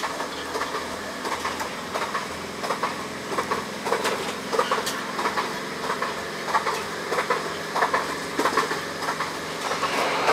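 A train running along the track, heard from inside the carriage: a steady rolling rumble with a faint hum and irregular clicks from the wheels and carriage.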